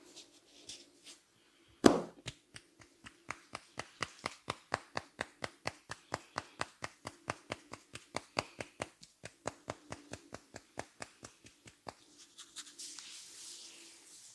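Hands rhythmically tapping and patting on a head during an Indian head massage: one sharp loud slap, then quick even strikes at about five a second for some ten seconds. Near the end the taps stop and give way to a soft rubbing of hands through hair.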